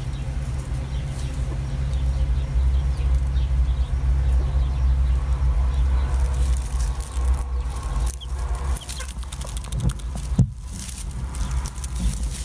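Broody hen clucking over her two-day-old chick in a straw nest, under a steady low rumble, with a short sharp tap about ten seconds in.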